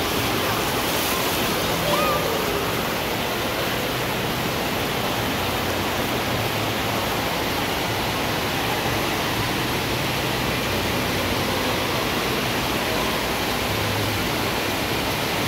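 Steady rush of water washing over the shallow floor of a beach-entry pool, stirred by wading feet.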